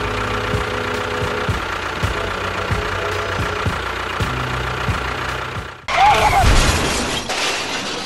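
Tractor engine sound running steadily, then about six seconds in a sudden loud crash that dies away over the next two seconds.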